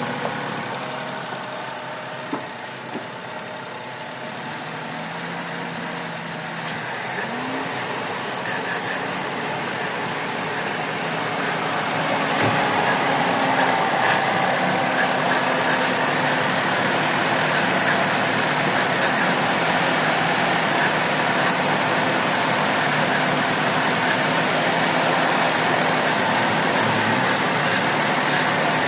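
Suzuki Celerio's three-cylinder engine idling steadily, growing louder about twelve seconds in. The engine has an intermittent misfire, a hiccup in its running, that is being diagnosed.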